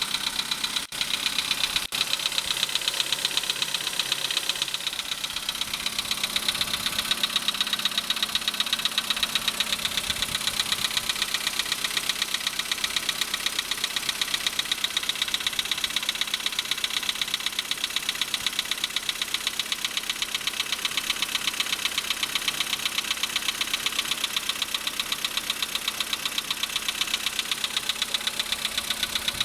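VW Polo's 1.6 CFNA four-cylinder petrol engine idling with a steady, rapid knock. This is the cold-engine knock the owner links to the pistons.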